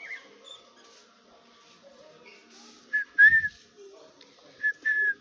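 Four short, loud whistled notes in two pairs, a little under two seconds apart, over faint chirping of caged birds.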